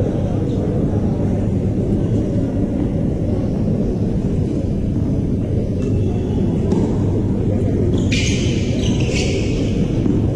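Steady, loud low rumble throughout, with a brief hiss about eight seconds in.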